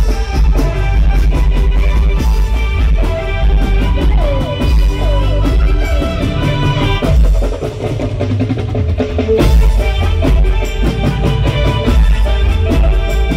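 Live garba band music played loud through a PA, with drum kit and hand percussion keeping a steady beat under sustained melody lines; no singing is heard.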